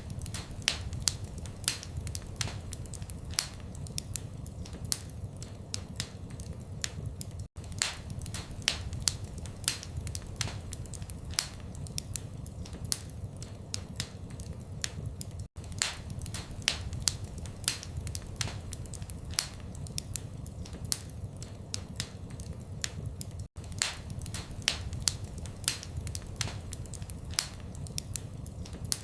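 Wood fire in a fireplace crackling: frequent sharp snaps and pops over a low, steady rumble of flames. The sound drops out very briefly about every eight seconds, where the loop repeats.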